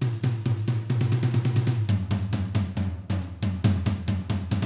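Outro music: a fast drum-kit beat with snare, kick and cymbals over a low bass line.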